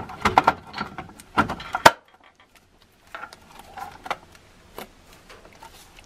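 Plastic clicks and knocks from a Mainstays kitchen scale's housing being handled and fitted together, with a sharp knock about two seconds in. The sound then drops away suddenly, and only fainter scattered clicks follow.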